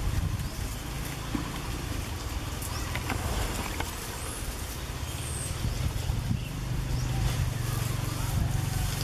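A low steady rumble, like a motor running nearby, with a few light clicks and rustles of dry leaves from macaques moving on the forest floor.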